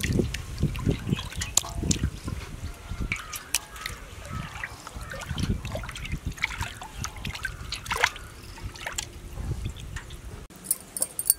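Water trickling and dripping, with many irregular small wet knocks and splashes, busier in the first few seconds.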